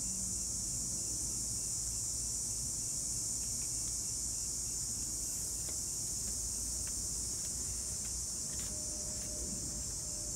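Steady, high-pitched, unbroken chorus of insects, with a few faint clicks in the second half.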